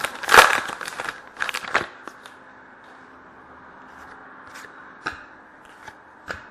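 Trading card pack wrapper crinkling and tearing open in a run of quick bursts, then a few light clicks as the cards are handled.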